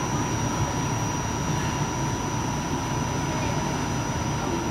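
Steady rumble and hum inside an RTA Blue Line light rail car, with a thin steady whine running through it.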